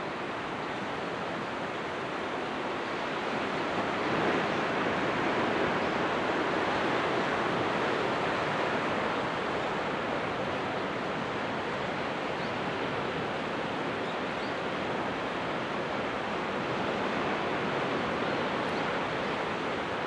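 Surf on a calm Pacific Ocean washing over and around a rocky outcrop: a steady wash of water that swells about four seconds in and again near the end.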